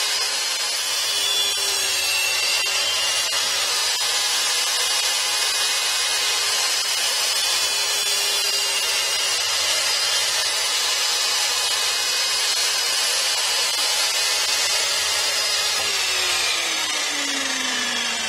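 10-inch sliding compound mitre saw running with a loud, steady motor and blade noise. About three-quarters of the way through, its whine starts falling in pitch as the motor spins down.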